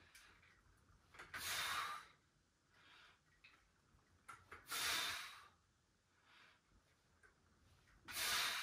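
A man breathing hard in time with dumbbell presses: three loud, hissing exhales about three seconds apart, with quieter breaths in between.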